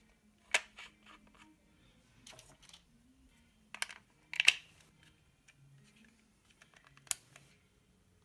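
Batteries being fitted into a plastic RC car transmitter's battery compartment, with a few sharp plastic clicks and snaps among quieter rattling and handling.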